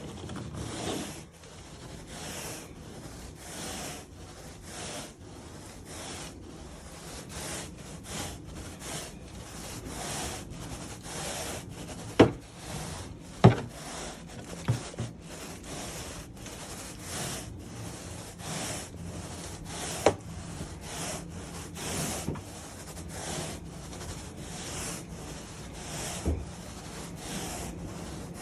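Rhythmic back-and-forth strokes over carpet, about one or two a second, with a few sharp knocks around the middle.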